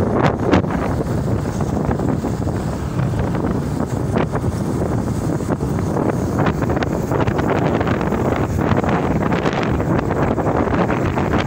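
Wind buffeting the microphone on a moving motorcycle, over the steady sound of its engine and tyres on the road.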